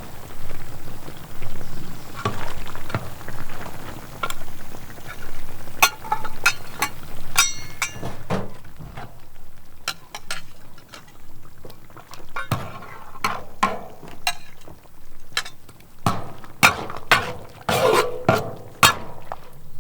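Kitchen utensils clinking and knocking against pots and dishes, with stirring and scraping. One clink rings briefly about 7 seconds in, and the knocks come faster near the end.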